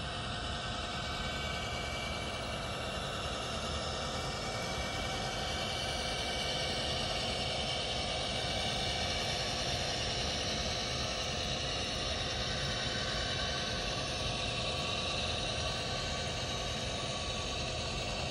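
HO-scale Bachmann ALC-42 Charger model locomotive running on its track, its sound decoder playing a steady diesel-engine drone through the model's small speaker.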